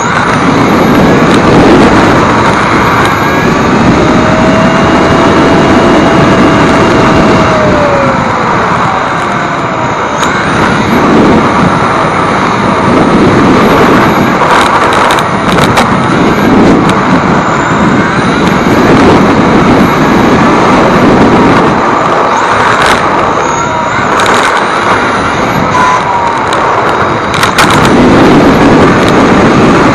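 On-board sound of an Xray T4 electric RC touring car lapping at speed: a loud, steady rush of tyres and air over the asphalt that swells and eases every few seconds. Over it a thin high whine from its 13.5-turn brushless motor glides up and down with the throttle, with a few brief knocks from bumps along the way.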